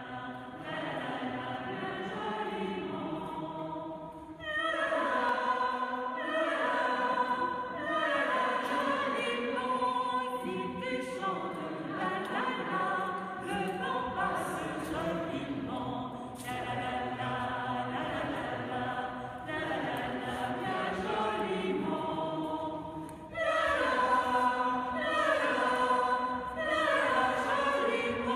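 Mixed choir of men and women singing, in phrases that get louder in two steps, about four seconds in and again with about five seconds left.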